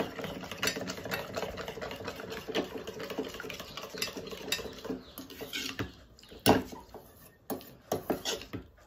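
Plastic spoon stirring milk in a small steel bowl: rapid light clinks and scraping against the metal, thinning to a few separate taps over the last three seconds.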